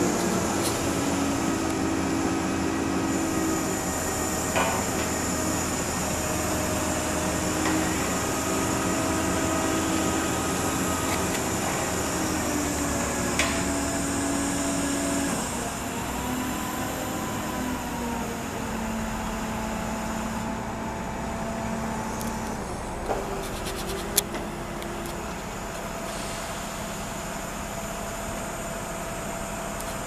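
Mobile crane's engine running steadily, its pitch stepping up and down several times as the crane works. A few sharp knocks stand out over it.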